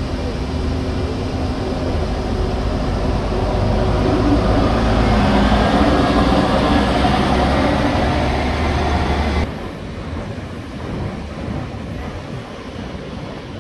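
Scania L94UB city bus pulling away and driving past, its engine running steadily and growing louder as it passes close. About nine and a half seconds in, the bus sound cuts off suddenly, leaving a quieter steady hiss of surf and wind.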